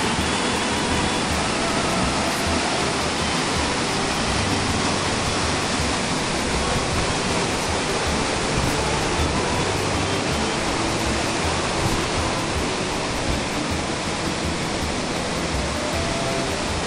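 The Xiblu waterfall: a steady, loud rush of falling water.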